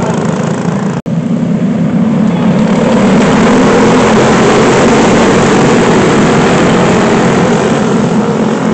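A pack of dirt-track racing go-karts passing, their small engines making a loud, steady drone that builds about two seconds in and holds as the field goes by. The sound drops out for an instant about a second in.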